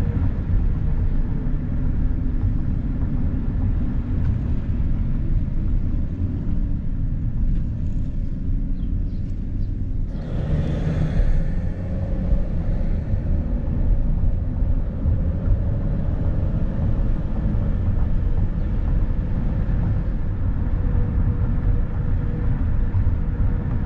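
Road and engine noise inside a moving van's cabin: a steady low rumble of tyres and engine with a faint steady whine, and a brief louder hiss about ten seconds in.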